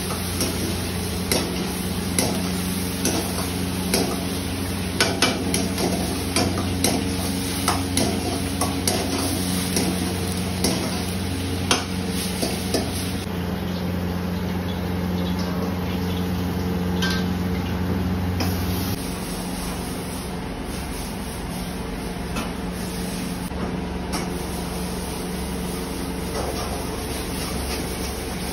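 Hands rubbing masala paste onto a whole fish in a steel bowl, with many sharp clicks and knocks against the metal over a steady low hum; the knocking thins out in the second half.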